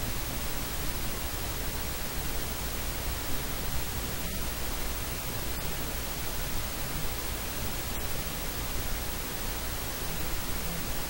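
Steady hiss of static noise, even from low to high pitch, with a low hum beneath it; no voice comes through.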